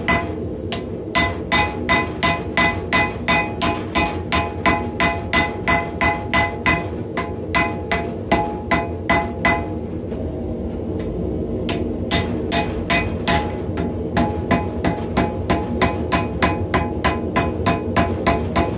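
Hand-hammer blows on a red-hot high-carbon steel bar on an anvil, about two to three a second, each with a short metallic ring from the anvil. The blows stop for about two seconds near the middle and then resume, with a steady low rumble underneath.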